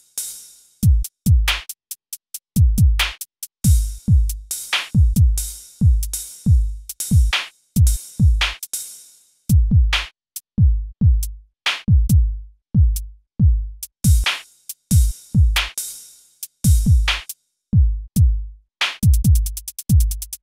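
Background music: an electronic drum-machine beat of deep kick drums whose pitch drops after each hit, with sharp high hits between them, and a fast hi-hat roll near the end.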